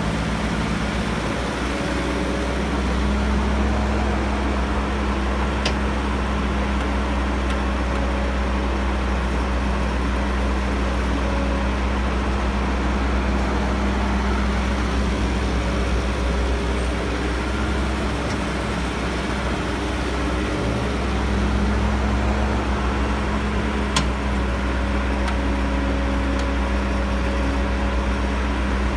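Caterpillar E315B hydraulic excavator's diesel engine running steadily, with a slight rise and fall in its hum. Two brief sharp knocks stand out, one about six seconds in and one later on.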